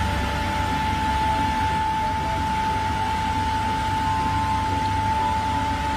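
Truck-mounted road sweeper (Roots on an Eicher chassis) working, its engine running with a steady hiss over a low hum and a steady high whine held throughout, as the rotating side broom sweeps the road.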